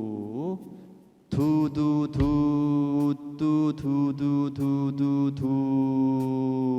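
A man's voice chanting the rhythm of a melody on "du" syllables, all on one steady pitch. One phrase trails off with a small upward slide, and a new one starts about a second in. The notes are of varying length, with a long held note near the end.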